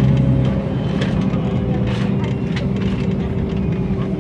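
MAN NL 273 T3 LPG city bus's gas engine idling steadily while the bus stands at a stop, a low even hum.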